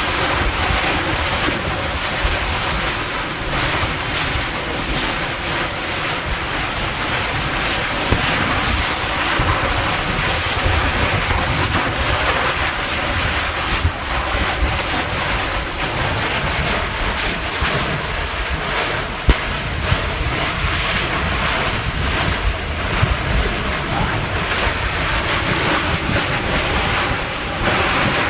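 Steady noise of surf and wind buffeting the microphone at a lava ocean entry, with a couple of short sharp cracks.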